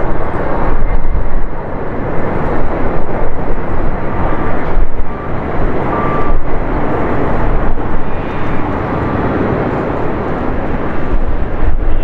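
Airbus A380's four Engine Alliance GP7200 turbofans, a loud steady rumble as the jet passes low on final approach at landing power.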